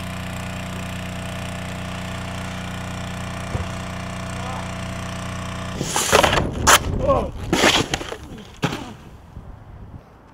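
A steady machine hum for about the first six seconds that cuts off suddenly, then a few loud knocks and scrapes of a snowboard hitting and sliding, with shouting.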